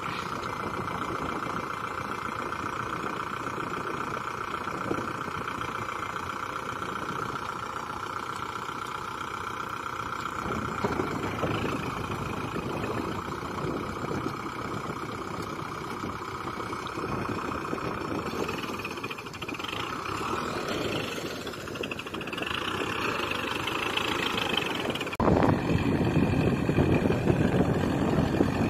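Kubota MU4501 tractor's four-cylinder diesel engine running as the mired 4WD tractor works in canal mud. The sound is steady for the first ten seconds or so, grows rougher and more uneven after that, and jumps suddenly louder near the end.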